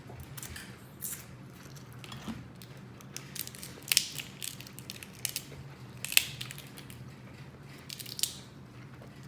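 Alaskan crab leg shells being cracked and snapped open: a handful of sharp, irregular cracks, the loudest about four and six seconds in.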